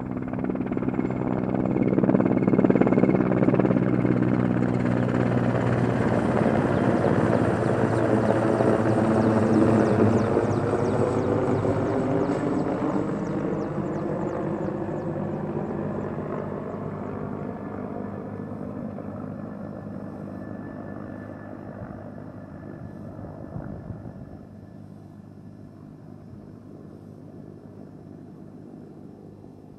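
Helicopter flying past close by: its rotor and engine sound swells over the first few seconds, then fades steadily as it moves away.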